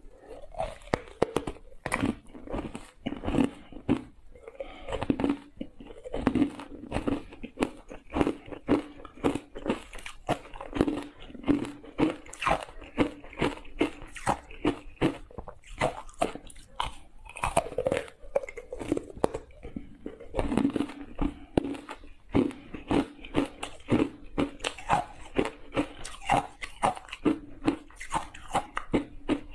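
Ice cubes coated in matcha powder being bitten and chewed close to a clip-on microphone: a continuous run of sharp, loud crunches and cracks, several a second, bite after bite.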